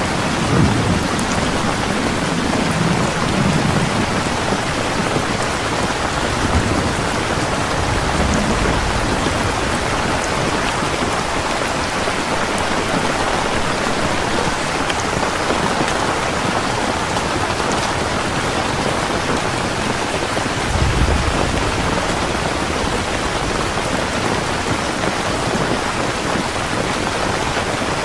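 Heavy rain falling steadily, with low rumbles of thunder in the first few seconds, again around eight seconds in and around twenty-one seconds in.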